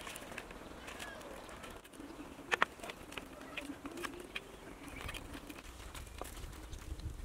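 Bamboo poles being handled, giving light knocks and clicks, the loudest a sharp double knock about two and a half seconds in, while birds call in the background.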